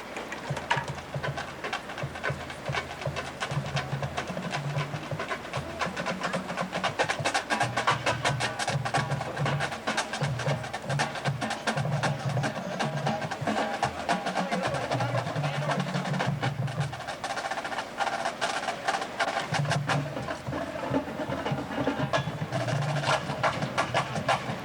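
Drum corps drumline playing: rapid snare strokes over low, pitched drum notes that step up and down in a steady rhythm.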